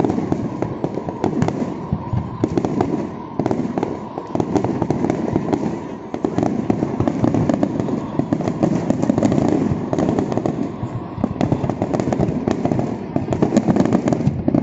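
Aerial fireworks display: a continuous barrage of shell bursts, with dense rapid pops and bangs packed closely together without a pause.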